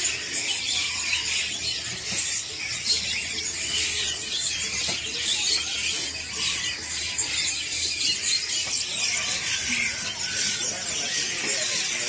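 Many small caged songbirds crowded in a crate, chirping and twittering all at once in a dense, high-pitched chatter.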